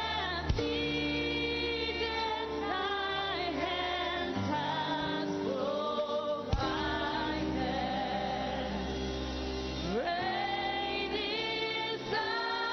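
Gospel singing by female voices and a choir with instrumental accompaniment, in long held, wavering notes. Two sharp knocks cut through, one about half a second in and one midway.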